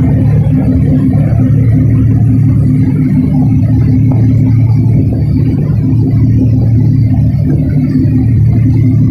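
Tugboat's diesel engines running steadily: a loud, deep, unbroken hum.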